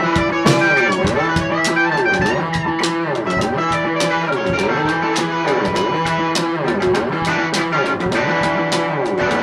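Guitar strummed in a steady rhythm, chords ringing on without singing.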